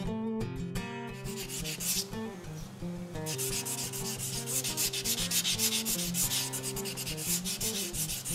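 Applicator pad rubbing compound by hand over the wet-sanded clear coat of a painted motorcycle exhaust cover, in quick back-and-forth strokes that start about a second in and get louder and busier partway through. Soft guitar music plays underneath.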